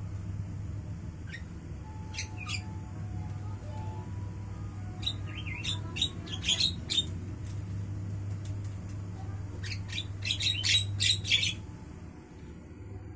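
Javan myna calling: short, harsh chattering notes in bursts, with the loudest, fastest run near the end, over a steady low hum.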